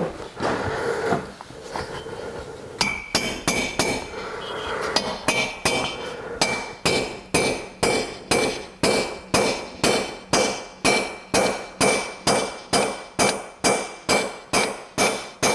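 A ball-pein hammer strikes a valve-guide drift, tapping a new valve guide into a hot aluminium BSA A65 cylinder head. The metallic blows start about three seconds in, sparse at first, then settle into a steady run of two to three a second, each with a short ringing note.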